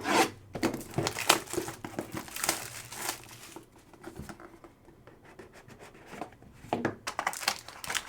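Plastic wrapping on a trading-card box crinkling and tearing as the box is opened by hand. The crackling is busiest for about the first three seconds, eases off, then picks up again near the end.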